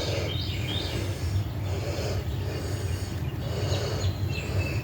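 Birds chirping in short calls over a steady low rumble of background noise.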